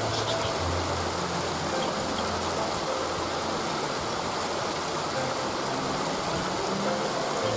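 Waterfall: water falling and rushing steadily, with a faint low hum underneath.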